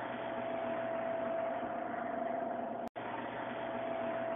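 Hot Choice hot-food vending machine humming steadily, a constant mid-pitched tone over a low electrical hum. The sound cuts out for an instant about three seconds in.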